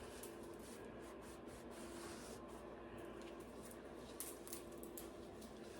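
Faint rubbing with scattered light clicks: a freshly solvent-cleaned bicycle chain being wiped dry in a cloth towel, its links clicking as they move.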